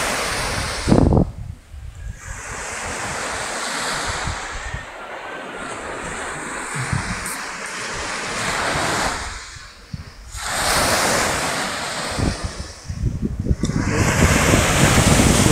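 Small sea waves breaking and washing up a pebbly beach in repeated surges, each swelling and then falling away into a short lull, with wind buffeting the microphone.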